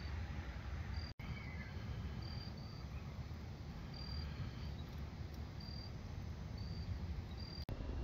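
Crickets chirping at night in short high trills, roughly one a second, over a steady low rumble.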